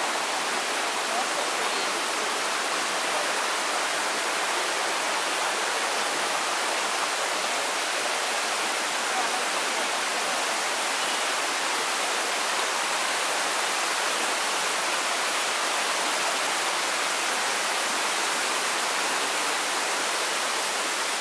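Steady, even rushing hiss that does not change.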